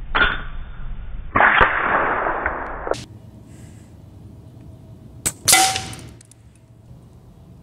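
Two shots from a Hatsan Factor RC regulated PCP air rifle, one at the start and one about five seconds in. Each is a sharp crack followed by a rush of noise, the first lasting nearly three seconds and ending in a click.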